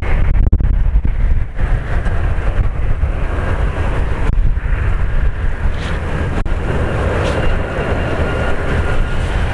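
Diesel freight locomotives running, heard through strong wind buffeting the microphone. A few faint steady whines rise above the rumble in the second half.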